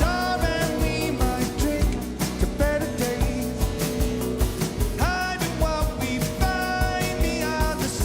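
Rock band playing live: drums keep a steady beat under a lead line that slides and bends in pitch.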